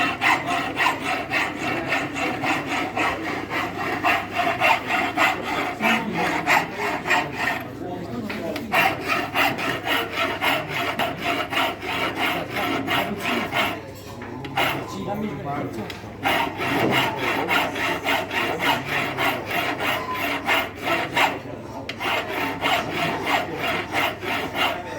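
Hand file rasping back and forth on a mild steel part in quick, regular strokes, rounding a corner to a radius, with a few short pauses.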